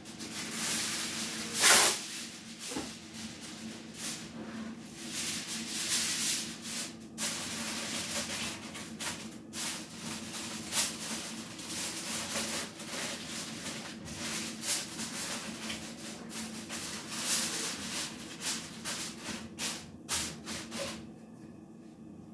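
Sheet of aluminum foil crinkling as it is pressed and folded down over the edges of a baking dish: irregular rustling with sharp crackles, loudest about two seconds in, stopping shortly before the end.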